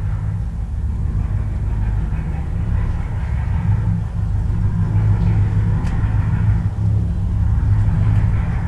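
Twin inboard engines of a Chris-Craft Corinthian 380 cabin cruiser running at low throttle during docking, a steady low rumble.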